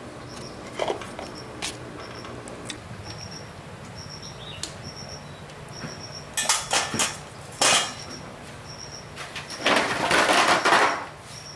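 Metal tools and engine parts handled on a workbench: scattered light clinks, a short clatter about six seconds in, and a second or so of loud scraping near the end. Behind it, a small high chirp repeats steadily in short groups, about every half second.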